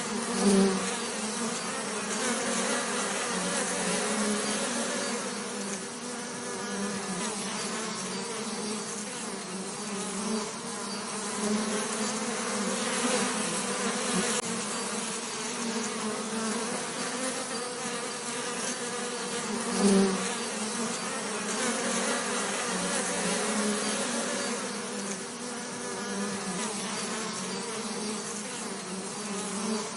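Bees buzzing in a steady, dense drone with a wavering pitch. It briefly swells louder twice, once near the start and once about two-thirds of the way through.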